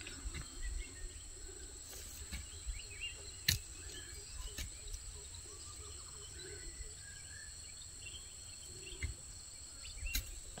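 Quiet open-field ambience: a steady high-pitched insect drone, with faint scattered chirps and a low rumble beneath. A single sharp click comes about three and a half seconds in.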